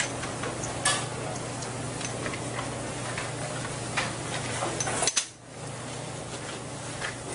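Scattered metal clicks and clinks from a brass post-office mailbox door and its lock being worked open, over a steady low hum. The hum cuts out suddenly about five seconds in.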